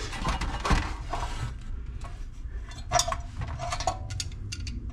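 Metal clinks and clatter as a lawn mower engine's cast oil sump cover is handled and set down on a steel workbench. Scraping and rustling come first, then a sharp clink about three seconds in and a quick run of clinks with a short ring near the end.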